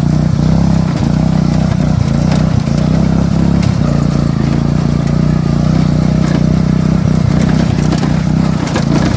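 Riding lawn mower engine running at a fairly steady speed, a loud, even drone.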